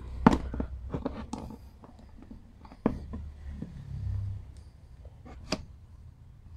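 Hands turning over a soft vinyl toy figure: scattered light clicks and taps with soft handling noise, the sharpest taps about 3 seconds in and near the end.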